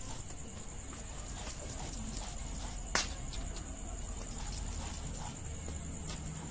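Stone roller worked back and forth over a flat grinding stone (sil-batta), crushing a wet yellow spice paste: rough scraping strokes with scattered knocks, one sharper knock about halfway through. A steady, high chirring of insects runs underneath.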